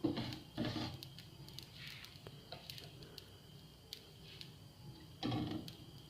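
Spoon stirring cumin and carom seeds dry-roasting in a pan: a few short scraping rustles with faint clicks between them.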